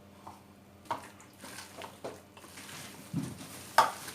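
Hands mixing a moist mixture of grated bottle gourd, gram flour and spices in a bowl: irregular wet squishing with soft knocks, and one sharper click near the end.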